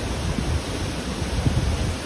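Steady outdoor rushing noise with a heavy low rumble, swelling slightly now and then; no animal call stands out.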